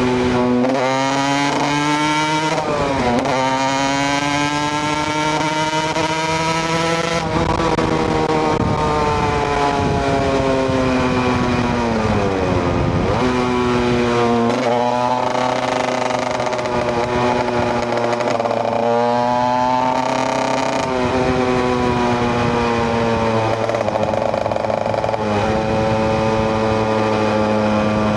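KTM EXC 125 single-cylinder two-stroke engine under way. Its revs climb with quick drops at each upshift during the first seven seconds, fall away slowly as it slows in the middle, then pull up again through further shifts.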